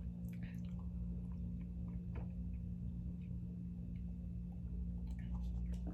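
Steady low room hum with a few faint, soft clicks.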